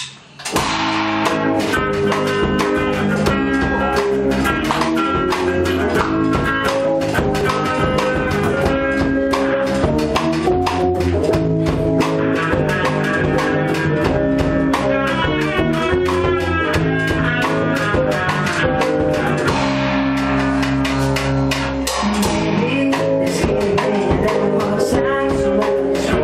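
Rock band playing live, with electric guitars and a drum kit crashing in together about half a second in and then playing steadily.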